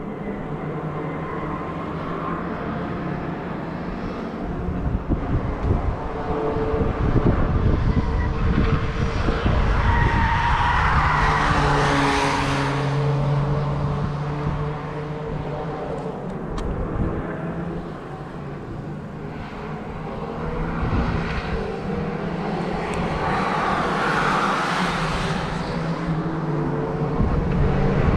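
Cars driving past on the Nürburgring Nordschleife, one after another, their engine notes rising and falling as each goes by. The loudest passes come about twelve seconds in and again near the end.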